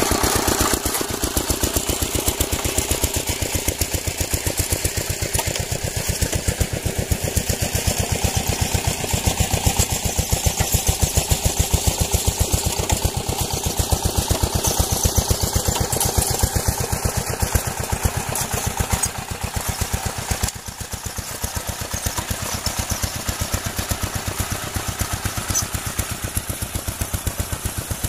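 An engine running steadily, with a rapid, even beat of firing pulses.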